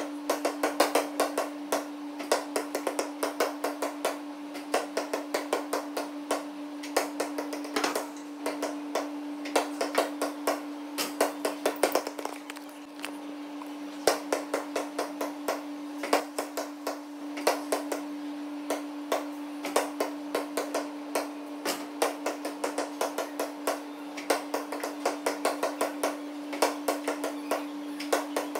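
Basketballs bouncing on a gym floor: many sharp, echoing bounces, often several a second, in runs with short gaps. A steady hum runs underneath.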